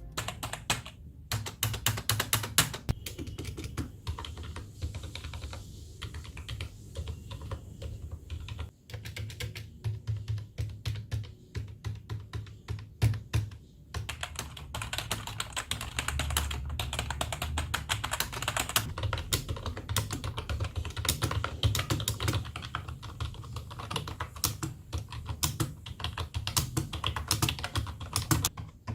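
Fast typing on budget computer keyboards: a dense stream of key clicks and clacks, with brief pauses about nine and fourteen seconds in.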